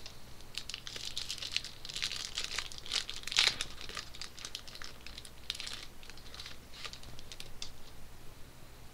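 Foil wrapper of a pack of hockey cards crinkling and tearing as the pack is torn open, a run of crackles that is loudest about three and a half seconds in.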